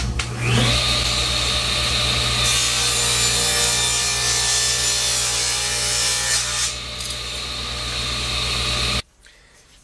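Table saw running and ripping a 3/8-inch maple board to width: a steady motor hum, with the blade's cutting noise added from about two and a half seconds in to about six and a half. The sound cuts off suddenly near the end.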